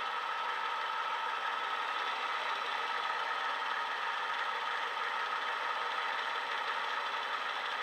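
Model locomotive's DCC sound decoder playing a Class 88's diesel engine idling steadily, with a steady whine on top. It comes through the model's small speaker, so there is little bass.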